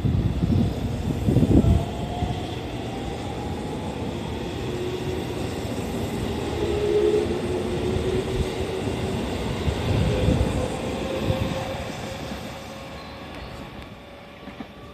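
A JR 313-series electric multiple unit departs and accelerates past, its traction-motor inverter whine climbing slowly in pitch over a rumble of wheels on rail. The rumble swells as the cars pass, then fades as the train pulls away near the end.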